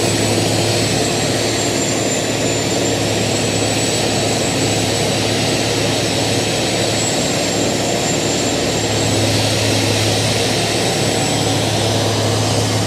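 Haybuster tub grinder with its engine running steadily at working speed while grinding straw bales: a continuous heavy mechanical noise with a deep steady hum and a faint high whine.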